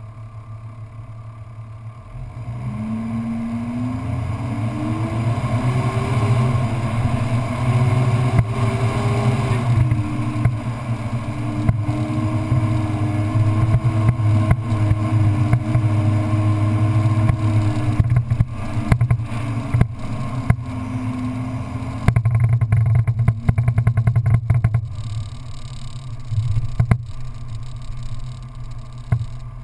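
Off-road vehicle's engine driving over a sandy track. The engine note climbs as it speeds up over the first several seconds, holds steady, then eases off after about twenty seconds. Knocks and rattles come in as the vehicle bumps along in the latter part.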